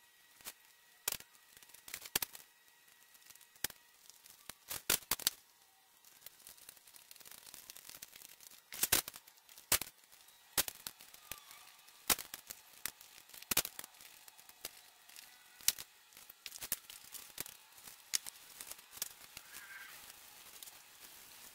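Masking tape pulled off the roll and torn into strips: a run of sharp, irregular crackles and snaps.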